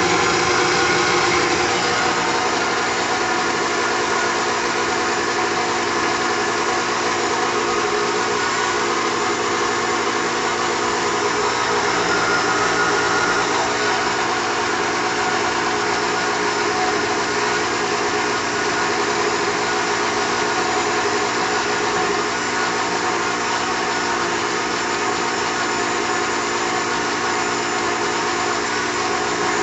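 Arno Triton blender's motor running steadily, a continuous whine with several steady tones.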